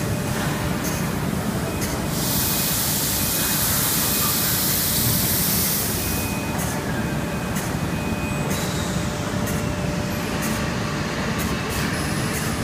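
Steady machine noise from an automated core-making line. A loud hiss of compressed air runs from about two to six seconds in, and scattered sharp clicks follow.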